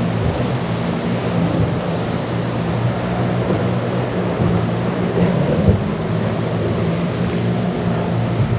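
Apache 47 offshore powerboat's engines running at speed with a steady low drone, over the rush of waves, spray and wind. A brief thud comes about five and a half seconds in.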